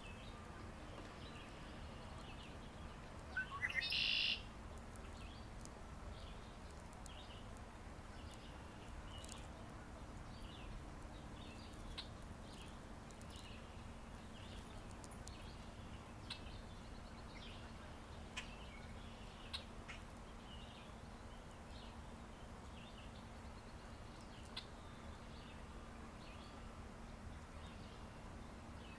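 Songbird singing: one loud song phrase about three and a half seconds in, and short chirps repeating throughout.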